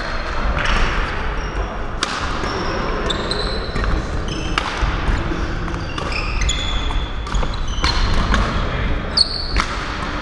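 Badminton rally: sharp racket strikes on the shuttlecock, with many short, high squeaks of shoes on the court floor.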